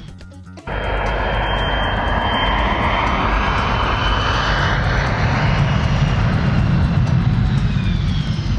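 Loud engine roar with a steady high whine and slowly falling tones, starting abruptly just under a second in.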